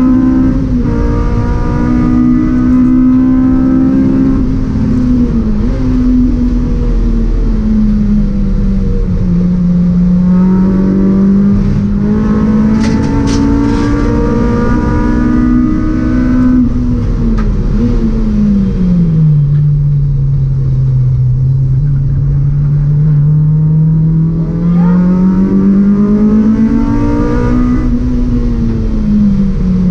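In-car sound of a 2004 Honda Civic Type R EP3 race car's 2.0-litre four-cylinder engine at race pace, its pitch falling and rising again several times as the car slows for corners and accelerates out of them, lowest about two-thirds of the way through. A short cluster of sharp clicks comes a little before halfway.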